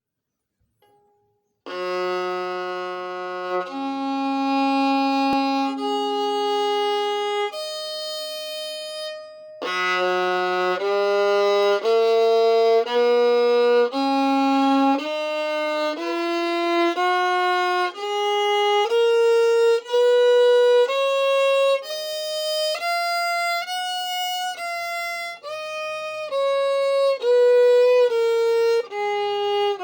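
Skylark violin strung with Larsen Tzigane strings and a Pirastro Chromcor E string, bowed solo. After a brief silence it plays four long notes stepping upward from low to high. From about ten seconds in it plays a run of shorter single notes, about one or two a second, climbing and falling like a scale.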